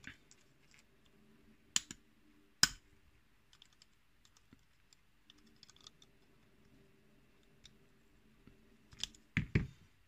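Small metal clicks and ticks of circlip pliers working the retaining clip on the end of a Evva euro cylinder lock, with two sharp clicks about two seconds in and a cluster of louder knocks near the end.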